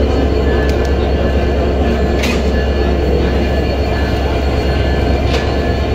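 Diesel engine of an EMD GT42ACL diesel-electric locomotive running steadily up close, a loud constant drone. Two brief sharp sounds about three seconds apart cut through it.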